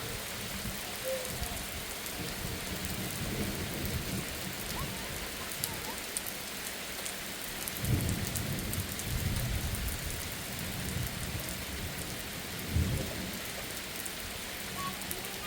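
Steady heavy rain falling, with two low rumbles of thunder, about halfway through and again a few seconds later.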